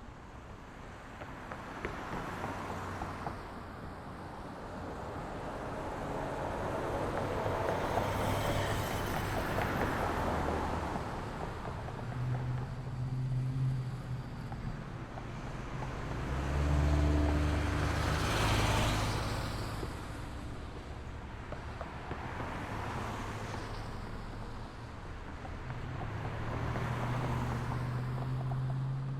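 Street traffic: a steady wash of cars going by, with several vehicles passing close, the loudest about two-thirds of the way through, and the low hum of idling or slow-moving engines.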